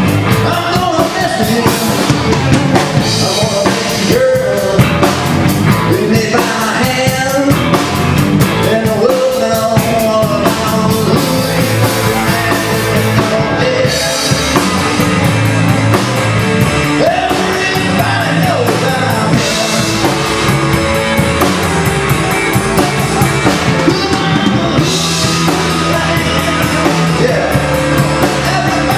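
Live rock band playing loud and steady: electric guitar, bass guitar and drum kit, with a singer's voice over them.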